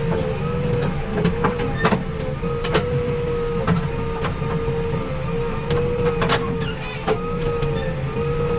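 JCB 3DX backhoe loader's diesel engine running under work, with a steady whine and a low rumble, and sharp metal clanks and knocks every second or so.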